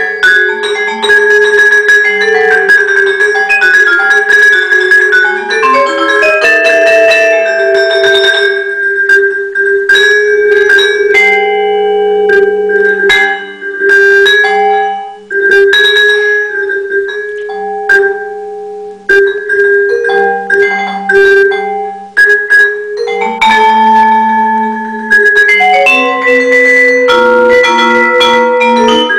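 Vibraphone played with mallets over a pre-recorded tape part, its struck notes ringing on in long sustained tones. The playing is busy at first, thins out to sparser notes after about eight seconds, and grows busier again near the end.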